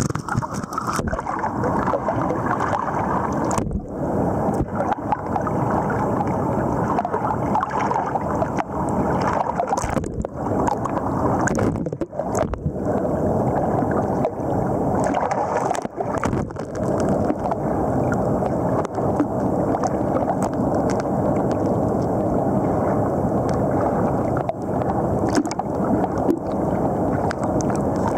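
Fast river current rushing and gurgling around a partly submerged microphone, giving a dense, muffled, steady wash of water noise with a few brief dips.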